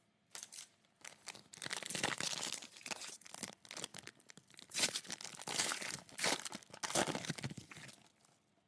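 Thin packaging crinkling and tearing, as from a trading-card pack wrapper or plastic sleeve being handled, in irregular bursts that stop shortly before the end.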